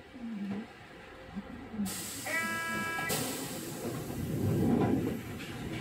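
Inside a Sapporo streetcar M100-class car: compressed air hissing out suddenly about two seconds in, with a short buzzer tone over it. Then a lighter hiss and a low rumble that swells and fades near the end.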